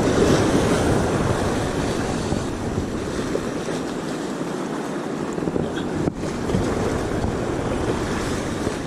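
Surf washing onto a sand beach, with wind on the microphone: a steady rushing noise that is strongest at first, eases off through the middle and swells again later.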